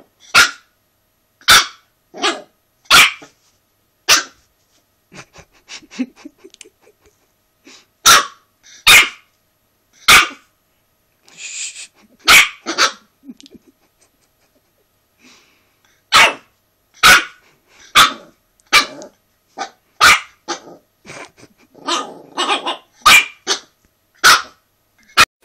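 Dog barking over and over in short, sharp single barks at an uneven pace, with quieter growling sounds in some of the gaps.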